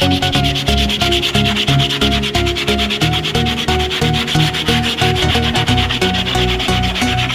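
Sandpaper rubbing on the wooden bookshelf, a steady rasping hiss, under background music with a bass line that changes note every fraction of a second.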